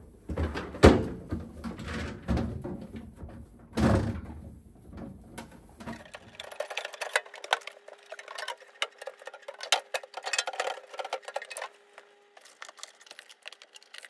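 Refrigerator drawers and shelves being handled and moved: sharp knocks and clunks of plastic and glass parts, the loudest about a second in and about four seconds in, then lighter rapid clicking and rubbing over a faint steady hum.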